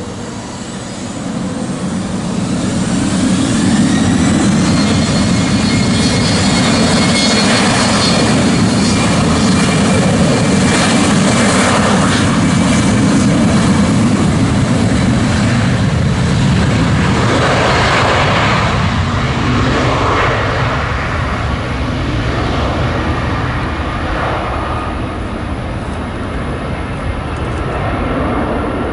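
Embraer 190 airliner's two GE CF34 turbofan engines spooling up to takeoff thrust, a rising whine over the first few seconds, then loud, steady jet noise as the airliner accelerates down the runway on its takeoff roll. The sound eases somewhat in the last several seconds as the jet pulls away.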